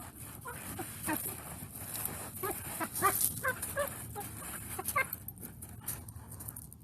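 Husky puppy making a string of short yelping, whining calls that bend up and down in pitch, the so-called jungle noises it makes while digging in sand, with scraping between the calls.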